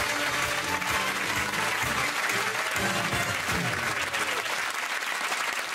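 Studio audience applauding steadily over the show's closing theme music.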